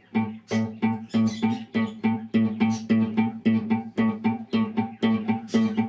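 A guitar repeating a single note in an even rhythm, about four plucks a second, alternating pick and middle finger: the chicken-picking exercise on one note.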